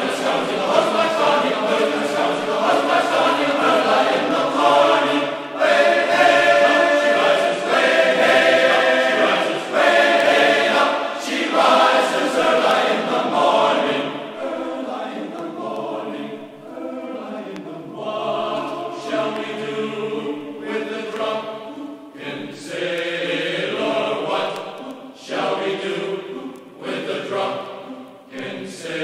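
Background music with choral voices singing held notes.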